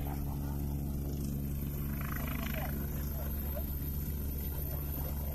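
Helicopter running: a steady deep hum made of several low tones, with a fast rotor flutter.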